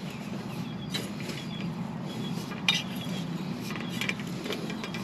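Metal tines of a long-handled hand tiller scraping and crunching into dry bed soil as it is worked in to break the ground up, with a few sharp clinks among the grinding.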